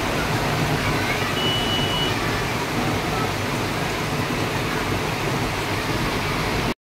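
Heavy rain pouring down on a flooded street: a steady, even hiss.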